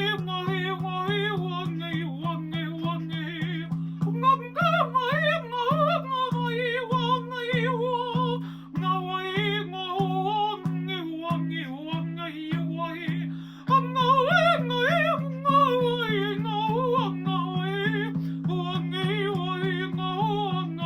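Wordless improvised vocal toning: a voice sliding and wavering between pitches over a low drone that pulses about twice a second. The voice breaks off briefly twice.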